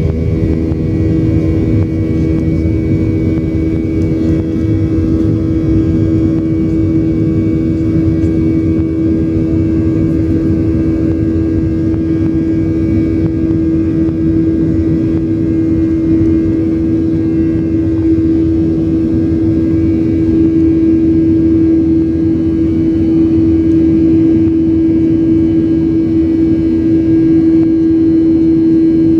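Jet airliner's turbofan engines heard from inside the cabin during the climb after takeoff: a steady engine noise with a strong constant hum over a low rumble, growing slightly louder about two-thirds of the way through.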